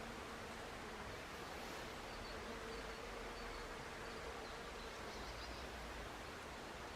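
A flying insect buzzing with a faint, steady hum over a soft outdoor hiss, fading out about five seconds in.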